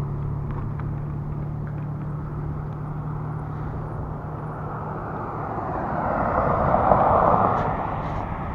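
Wind noise on the microphone while cycling, with a car passing on the road. Its tyre and road noise swells to a peak about seven seconds in, then fades.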